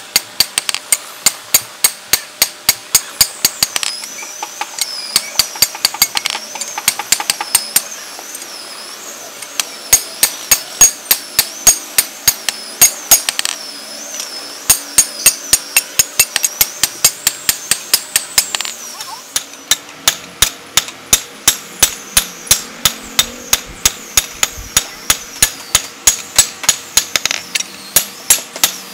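Hand hammer beating a leaf-spring steel cleaver blade on a small steel anvil block: sharp metal-on-metal blows, about three a second, with two short pauses.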